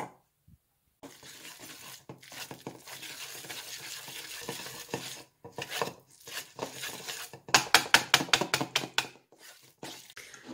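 Wire whisk beating a thick crème fraîche and goat cheese mixture in a stainless steel bowl. A steady scraping comes first, then a quick run of clinks from the wires hitting the bowl, about six a second.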